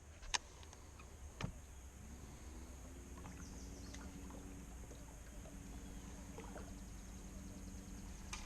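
Two sharp knocks on the boat, then a low steady motor hum starts about two seconds in, rises briefly in pitch and settles.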